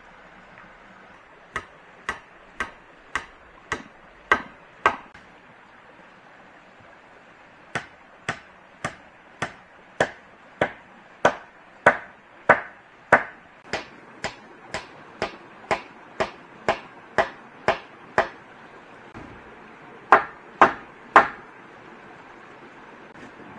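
Rhythmic blows of a hand tool striking wood, about two a second, in three runs separated by short pauses.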